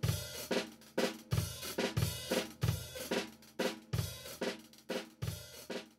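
Drum kit playing a steady groove as outro music, with a strong low drum hit about every two-thirds of a second and lighter strikes and cymbal wash between them.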